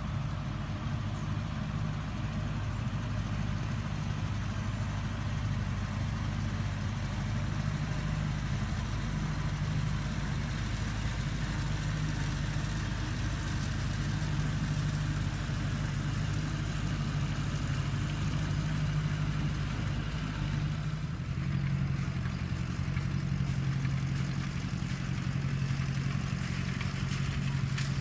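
Ferguson 40 tractor engine running steadily under load in the hayfield. About three-quarters of the way through, the engine note shifts to a slightly different steady pitch as the tractor pulls a hay rake.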